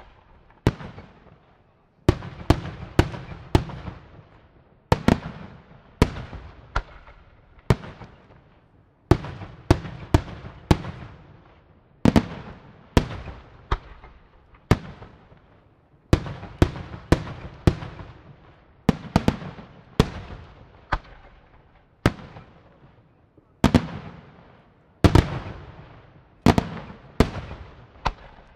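Aerial firework shells bursting in a display: a sharp bang about once a second, sometimes two in quick succession, each followed by a fading rumble.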